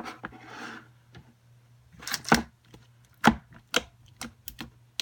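White base slime being pressed and poked in its container: a soft squishing rub, then a series of sharp clicks and pops from about two seconds in.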